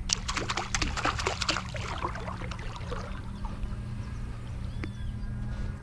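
Feet splashing and scuffing in shallow muddy river water, kicking up the mud: a quick run of splashes for about three seconds, then quieter.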